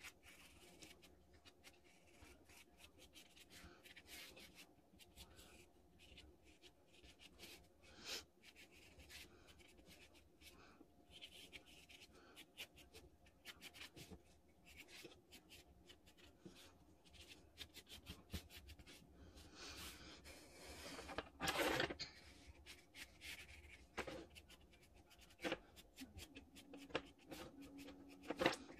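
Graphite pencil drawing on watercolour paper: faint, uneven scratching strokes of the lead on the paper, with a louder rub a little past two-thirds of the way through.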